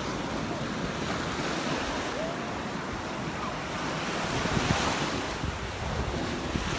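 Ocean surf washing onto a sandy beach, with wind gusting across the microphone in low rumbles that grow stronger in the second half.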